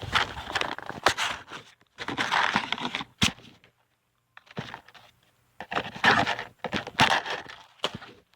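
Hands rummaging for matches: rustling, crinkling and scraping handling noise in several bursts, with a sharp click about three seconds in.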